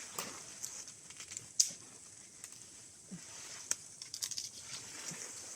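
Dry dead plant material crackling and snapping, with scattered sharp cracks and one louder snap about a second and a half in.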